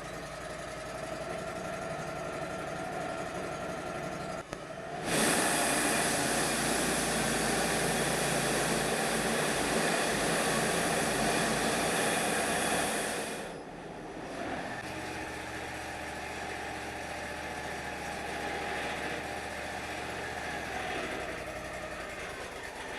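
Wood-Mizer LT35 portable band sawmill running, with a loud, hissing stretch of about eight seconds starting some five seconds in as its band blade cuts through a yellow pine log, then dropping back to the engine's steady running.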